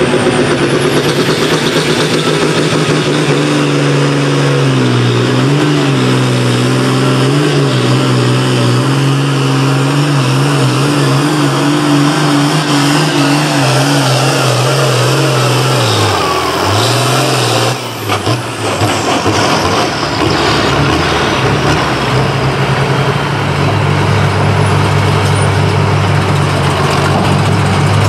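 International Harvester pulling tractor's diesel engine at full throttle under load, its pitch wavering as it pulls. The pitch sags sharply about sixteen seconds in, the throttle comes off with a high whine falling away, and the engine settles to a steady idle for the last few seconds.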